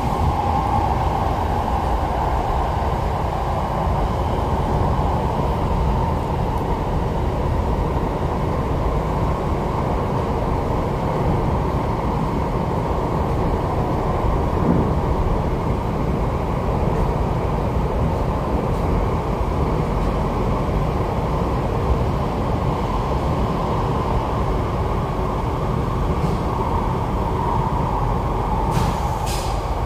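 MTR East Rail Line R-Train running at speed through the underground cross-harbour section, heard inside the car: a steady rumble of wheels on rail and traction motors.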